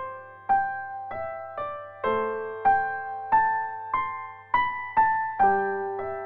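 Background music: a gentle electric piano or keyboard melody of single struck notes, about two a second, each fading before the next.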